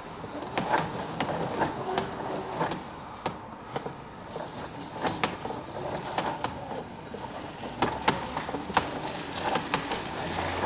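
The retractable hose reel of a Giraffe Tools Grandfalls pressure washer is winding its hose back in. There is a steady run of irregular clicks and rattles as the hose feeds through the guide sliding along its bar.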